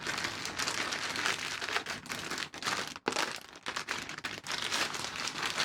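Crinkly packaging being handled and pulled open, a continuous run of crumpling and crackling while a newly delivered parcel of bicycle pedals is unwrapped.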